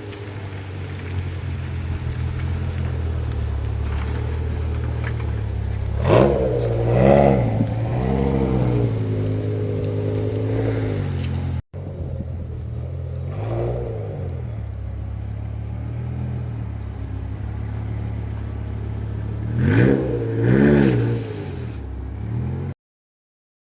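BMW E60 M5's V10 engine idling steadily, with short throttle blips that rise and fall in pitch: two about a quarter of the way in, one just past halfway, and two more near the end before the sound cuts off.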